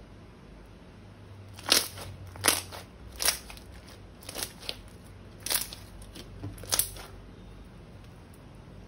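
Slime being squeezed and pressed by hand, giving a series of short crackling crunches, about one a second, for some five seconds.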